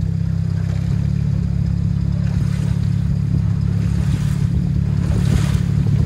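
Boat engine running at a steady speed, a constant low drone, with the rush of water along the hull.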